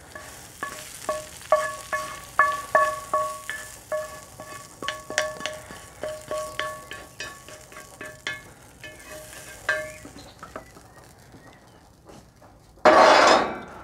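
Wooden spatula scraping and knocking fried bacon and onions out of a hot cast-iron skillet into a stainless steel mixing bowl: a run of knocks, each with a short metallic ring, over a faint crackle of hot fat. The knocking stops about ten seconds in, and near the end a loud rush of noise lasts about a second.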